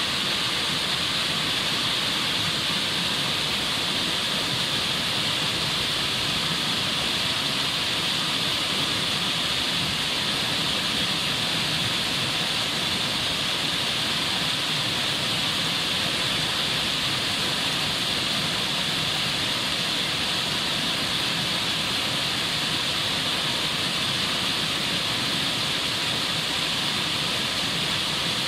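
White-water rapids of a rocky stream rushing over boulders: a steady, unbroken hiss of water.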